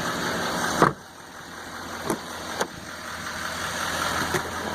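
GMC Sierra 3500HD's 6.6-litre Duramax diesel idling, with a truck door shutting with a loud thud about a second in.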